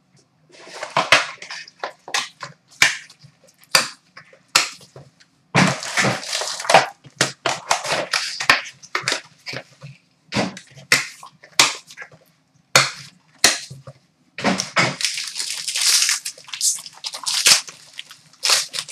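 Plastic shrink-wrap and cardboard packaging being torn open and crinkled by hand as a box of hockey trading cards is unwrapped, in irregular crackling rustles with short pauses between them.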